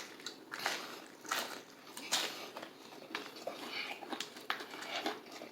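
A person biting into and chewing crispy KFC Nashville Hot fried chicken, with irregular crunches and chewing sounds.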